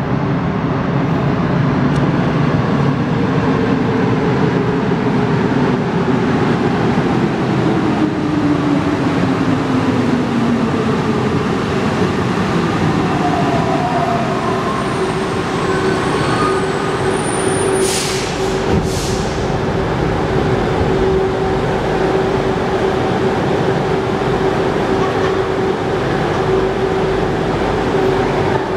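Alstom NS-04 rubber-tyred metro train arriving and braking to a stop at a platform. Its motor whine falls steadily in pitch over the first ten seconds or so, then a steady hum carries on from the stopped train, with a short hiss of air about two-thirds of the way through.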